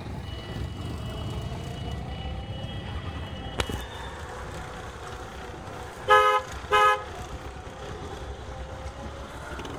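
A vehicle horn toots twice in quick succession a little past halfway, over the steady low rumble of engines in slow, jammed street traffic.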